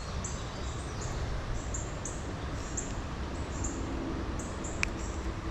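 Outdoor creek ambience: a steady rush of flowing water with short, high chirps repeating about twice a second. A single sharp click comes a little before the end.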